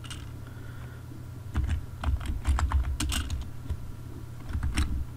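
Typing on a computer keyboard: quick, irregular clusters of keystroke clicks that start about a second and a half in.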